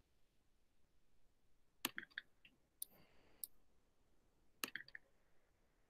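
Clicking from working a computer, heard over near silence: a quick cluster of clicks about two seconds in, two single clicks after it, and another cluster near the end.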